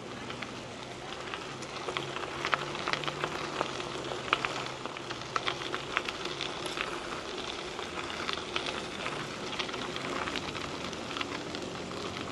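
Trek 4500 mountain bike tyres rolling over a gravel trail, with a steady crunch and many scattered clicks and pops of small stones.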